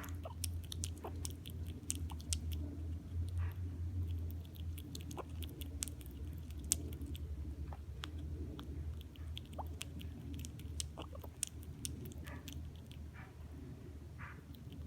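Baby squirrel chewing peanuts: irregular sharp crunches and clicks of teeth on shell and nut, over a steady low hum.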